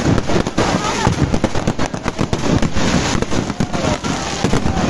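Fireworks and firecrackers going off in a dense, continuous crackle of sharp bangs, many a second.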